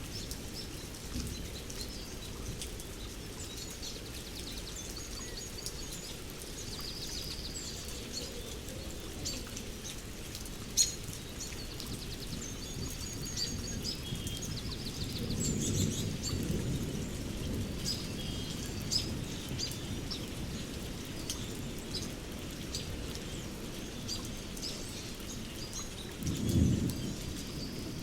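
Forest thunderstorm ambience: a steady hiss of rain under songbirds chirping, with thunder rumbling about halfway through and a shorter, louder rumble near the end. A single sharp click comes before the middle.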